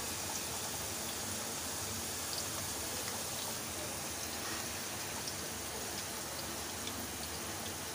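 Potato fries sizzling steadily as they deep-fry in hot oil, with scattered small pops. The fries are cooked through and at the end of frying.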